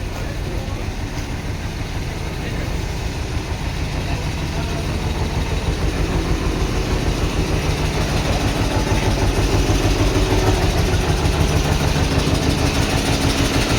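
Large diesel vehicle engine running with a steady low hum that grows louder over the first half, then holds steady.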